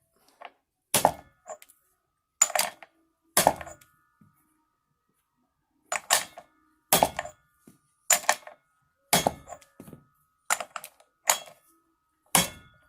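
About ten sharp metal knocks, each with a short ring. They come roughly one a second, with a pause of about two seconds partway through. This is the work of the final tightening of the castle nut on a Bedford bus driveshaft hanger bearing.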